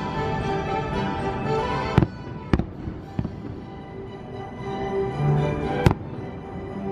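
Fireworks shells bursting with four sharp bangs, the loudest about two and six seconds in. Underneath, the fireworks show's music plays steadily from loudspeakers.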